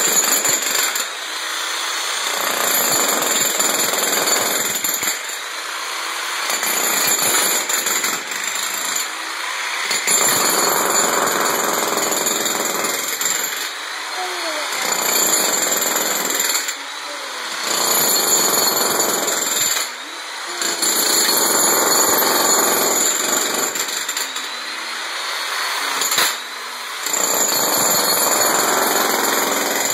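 Corded electric demolition hammer chiselling into a tiled concrete floor, its rapid hammering breaking up concrete. It runs in bouts of a few seconds each, with brief pauses between them.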